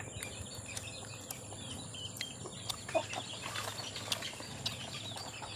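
Outdoor bird chatter: many short high chirps over a steady high-pitched insect drone, with a brief lower call about three seconds in and a few faint knocks.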